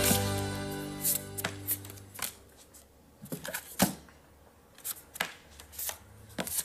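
Background music with held notes fading out over the first two seconds, then about a dozen sharp, irregular clicks and taps of playing cards being put down and handled on a table.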